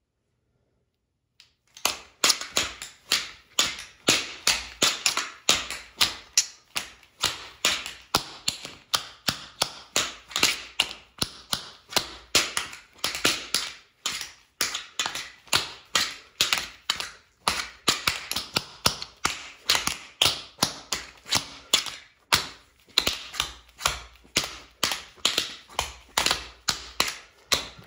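Tap shoes striking a hard floor in quick, rhythmic clicks of tap dancing, starting about two seconds in and running on without a break.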